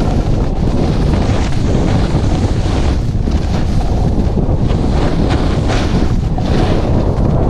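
Wind buffeting the camera microphone: a loud, steady low rumble with brief hissing swells every second or so.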